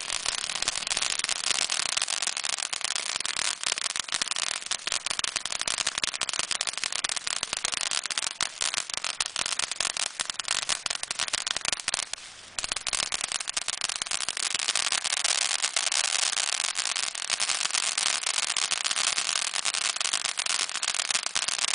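Fireworks crackling densely and without let-up: a rapid, continuous stream of small sharp pops, with a brief lull about halfway through.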